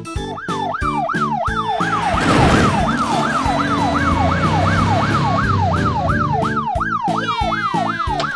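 Electronic wailing siren, set off by a red alarm button, sweeping quickly up and down in pitch about twice a second without a break. A brief noisy rush about two seconds in is the loudest moment.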